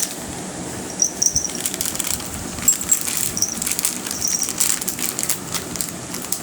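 Irregular rustling and small clicks of things being handled, with a few short high chirps.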